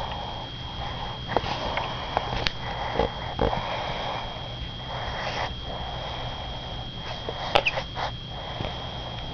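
Dog snoring: noisy, rasping breaths that swell and fade every second or two. A few small clicks come through, the sharpest about seven and a half seconds in.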